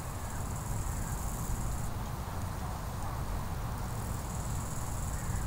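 Outdoor ambience: a steady low rumble, with insects chirring in a high, even buzz that stops about two seconds in and starts again about four seconds in.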